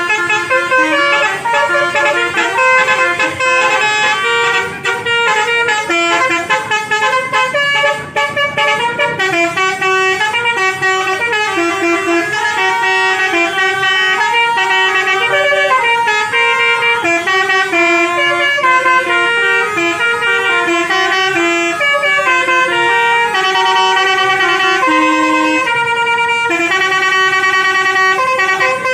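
Bus 'basuri' musical air horns (telolet horns) playing tunes nonstop, loud, with notes stepping up and down and several melody lines overlapping.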